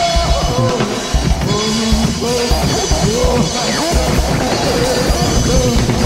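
Live experimental band music: a drum kit with bass drum beats and cymbals, under wavering, sliding pitched tones.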